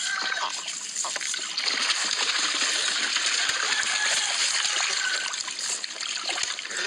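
Water splashing and trickling steadily, a little louder from about a second and a half in.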